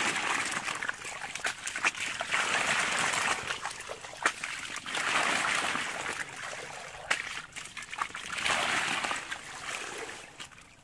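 Water splashing and trickling through a perforated fish basket as it is dipped and rocked in shallow paddy water, coming in repeated swells with small knocks. The basket holds small fish.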